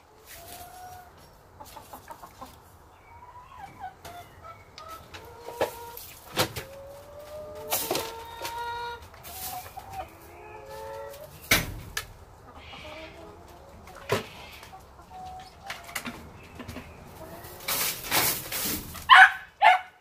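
Brown hens clucking on and off with short, repeated calls. Sharp scrapes and knocks of a hand brush and plastic dustpan on the ground of the run come in among them, denser and louder near the end.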